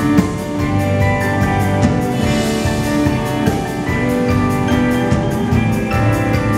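Live rock band playing a song: electric bass, electric guitar and drum kit together, with a cymbal crash about two seconds in.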